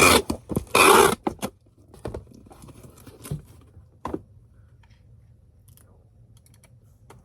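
Packaging being torn and handled: a couple of loud tearing, scraping rips in the first second and a half, then scattered light rustles and clicks.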